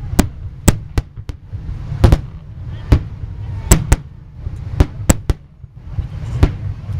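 Aerial fireworks bursting: about a dozen sharp bangs at irregular intervals, some in quick pairs, over a constant low rumble.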